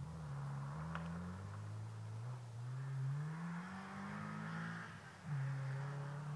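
Distant rally car's engine revving hard on a gravel stage, its pitch climbing through the gears with small drops at the changes, falling sharply about five seconds in and then holding steady.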